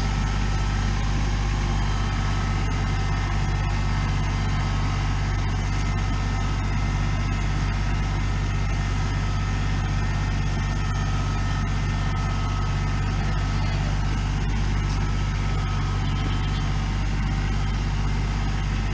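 An engine running steadily at one constant speed, a low, even drone.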